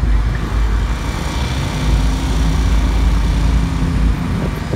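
Road traffic going by, with a heavy low rumble throughout. A steady engine hum holds for a couple of seconds in the middle.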